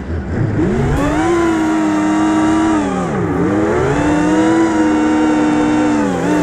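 FPV racing quadcopter's brushless motors whining under throttle. The pitch climbs about half a second in and holds, then drops sharply and climbs again around three seconds in as the throttle is chopped and punched, and falls once more near the end.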